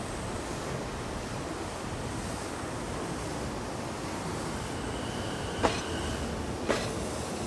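JR E233-series electric train rolling slowly past at low speed, a steady rumble with two sharp clacks about a second apart near the end.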